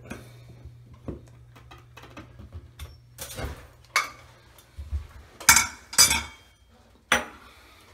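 Sharp metallic clinks and clatters of tools and hardware being handled, a few spread out with the loudest pair about five and a half and six seconds in.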